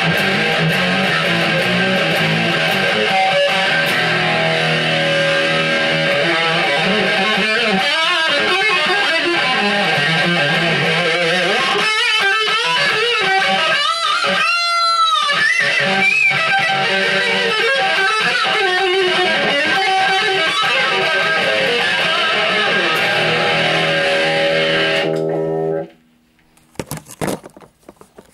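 Electric guitar played through an amplifier, heavy metal riffing, with swooping pitch bends in the middle. The playing stops abruptly near the end, followed by a few faint knocks.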